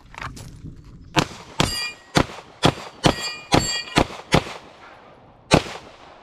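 Handgun fired rapidly at steel targets: about nine shots from about a second in, several of them followed by the ringing clang of a steel plate being hit. The last shot comes after a pause of about a second, near the end.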